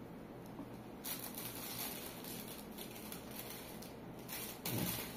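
Rustling and scraping of packaging being handled, in several short bouts, with a louder bump or rub near the end.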